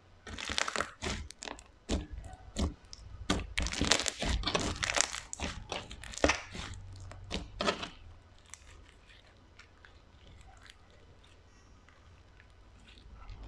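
Slime being squeezed and worked by hand, giving a dense run of crunchy crackles and pops for about eight seconds, then only faint scattered crackles.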